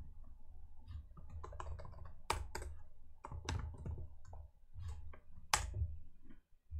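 Typing on a computer keyboard: a run of uneven key clicks, with a few sharper strokes, one of them near the end.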